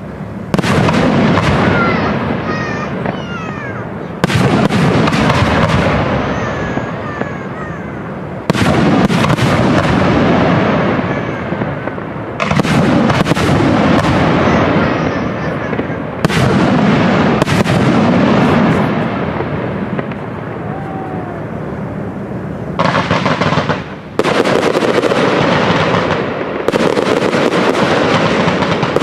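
Aerial firework shells bursting in a display, one loud bang about every four seconds, each followed by a long fading tail; the bangs come closer together near the end.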